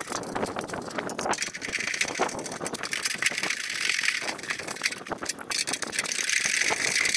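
17 mm spanner tightening a nyloc nut onto a bolt of a galvanised steel solar-panel bracket, giving a dense run of fast metallic clicks and rattles.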